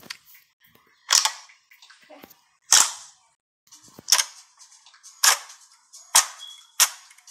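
Fingers poking and pressing into glossy slime, with air pockets bursting in sharp pops and clicks. There are about six loud pops, roughly a second apart.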